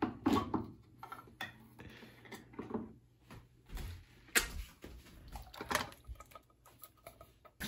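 Handheld crank can opener clicking in short irregular turns as it cuts around the rim of a can, then a couple of sharp knocks from the can being handled.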